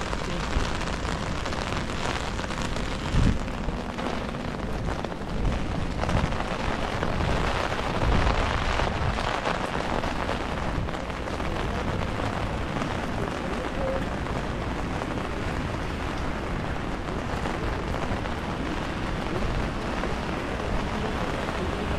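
Steady rain on a wet city street and pattering on an umbrella held overhead, with a few low thumps.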